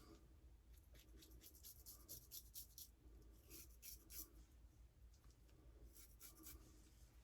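Faint, short scraping strokes of a 6/8 Jerry Stark Viking Damascus straight razor cutting stubble during cleanup passes, coming in runs of quick strokes with short pauses between them.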